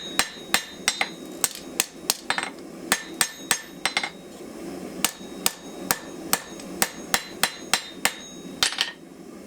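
Hand hammer striking a hot steel knife blank on an anvil: a run of sharp, ringing blows about two or three a second, with a short pause midway, stopping near the end.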